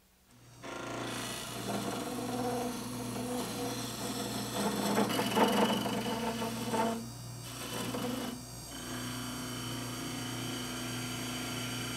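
Wood lathe running with a steady hum while a hand-held turning tool cuts the spinning wood, the scraping of the cut loudest in the middle and easing off after about nine seconds, leaving mostly the motor's hum.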